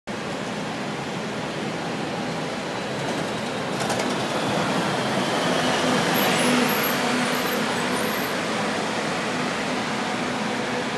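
Busy city street traffic with double-decker buses running past: a steady wash of road noise that swells in the middle and eases off toward the end.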